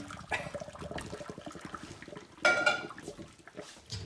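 Hot pasta water and spaghetti poured from a saucepan into a stainless-steel colander in a sink, the water splashing and draining away. About two and a half seconds in there is a loud, ringing metal clank.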